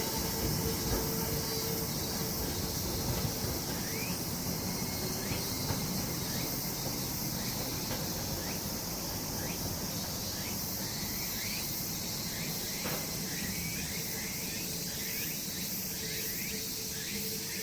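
Steady high-pitched insect chorus, with short rising chirps repeating through most of it. A low rumble and a steady hum fade out in the first few seconds.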